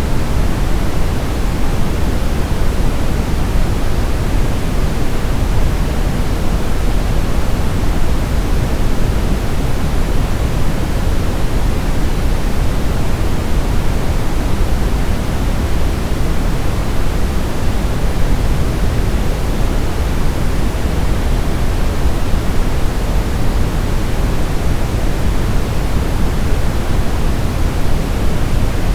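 Steady white noise sleep sound: an even, unbroken rushing hiss, fuller in the low end, with no pitch or change.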